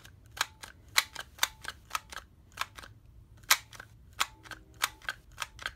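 Cheap plastic ratcheting bar clamp being squeezed over and over, its trigger mechanism clicking as it ratchets along the bar: a series of sharp clicks, about two a second, some louder than others. The mechanism is ratcheting with full travel and not sticking after a home repair.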